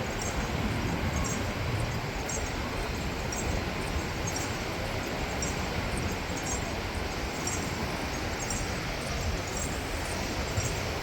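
Steady beach noise of wind and surf, with a faint high tick repeating about every 0.7 seconds.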